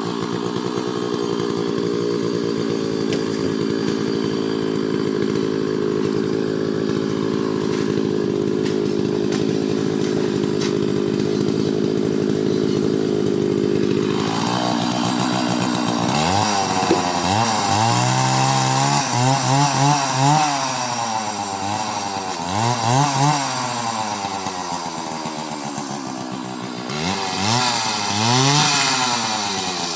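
Two-stroke chainsaw running at a steady low speed, then revved up and down again and again in the second half, with one more burst of revving near the end.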